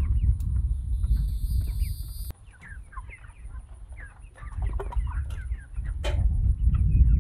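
A flock of young Cornish Cross broiler chickens cheeping and clucking in many short calls, over a loud low rumble that drops away for a couple of seconds near the middle.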